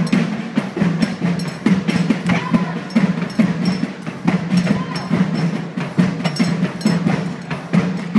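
Badminton rally in a sports hall: sharp irregular clicks of rackets striking the shuttlecock and of footfalls, with a couple of short shoe squeaks on the court floor, over a steady low hum.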